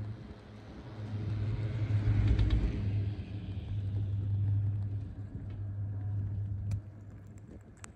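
Poma high-speed quad chairlift running, heard from the chair: a steady low hum from the moving lift, with a rumble that swells about a second in, peaks around two to three seconds and fades away by about seven seconds.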